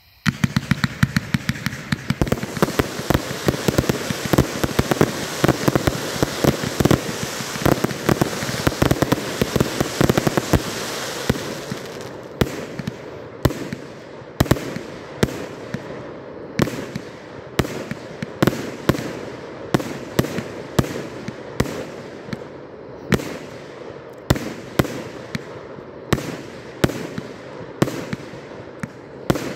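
A multi-shot consumer fireworks cake firing. It starts suddenly with a dense barrage of rapid pops over a steady hiss. After about twelve seconds it settles into separate shots and bursts, roughly one a second.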